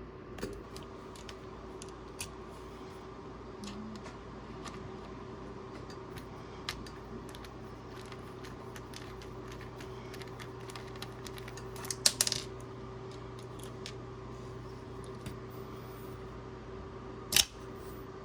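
Small metal hand tools clicking and clinking as a T8 Torx screwdriver is handled, with a short cluster of rattles about twelve seconds in and one sharp click near the end, over a steady hum.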